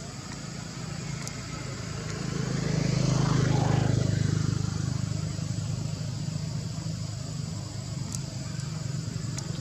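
A motor vehicle engine going by, swelling to its loudest about three and a half seconds in and then fading back to a steady hum, with a few faint clicks.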